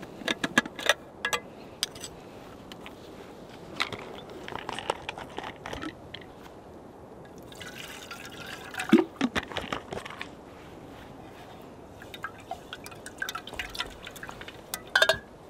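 Water poured from a bottle into a small metal camping kettle about halfway through, with light metal clinks and clatter from the kettle, its lid and a canister camp stove being handled before and after.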